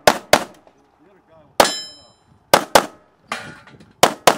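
Handgun shots fired in quick pairs, seven in all: three fast pairs and a single shot. The single shot is followed by a ringing clang, typical of a steel target being hit.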